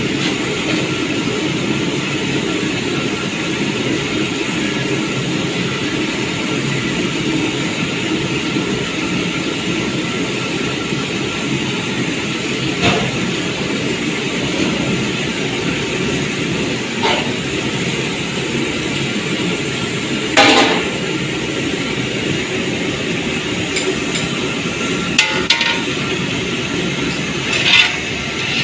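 Finger fish pieces frying in hot oil, a steady sizzle, during the first half-fry. A few sharp clinks of a utensil come through, the loudest about two thirds of the way in.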